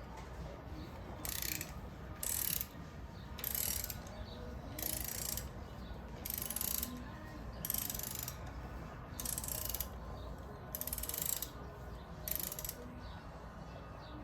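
Ratchet wrench clicking in repeated short runs, about one every second, as it works the socket on the oil filter of a Harley-Davidson Road King to loosen it.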